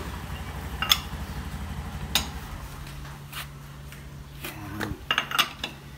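Wheel nuts being tightened with a wrench: three sharp metallic clinks about a second apart, over a steady low hum.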